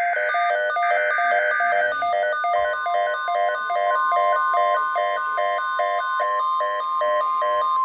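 Weather radio receiver sounding a rapid, pulsing alert beep, about three beeps a second. At the start it runs under the screechy data bursts of a SAME alert header. A few seconds in, the steady 1050 Hz NOAA Weather Radio warning alarm tone begins and holds, marking the start of a new alert message.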